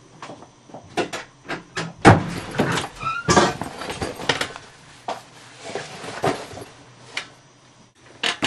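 A run of sharp knocks and clatter from furniture and objects being handled, like a cupboard or drawer being worked. The loudest knock comes about two seconds in, with a short squeak about a second later.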